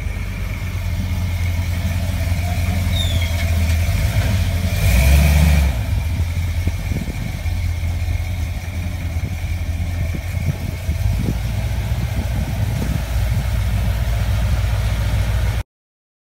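350 small-block Chevy V8 with headers and Flowmaster street mufflers running at low speed as the pickup rolls along, with a deep, steady exhaust note. It swells louder for about a second around five seconds in, and the sound cuts off suddenly near the end.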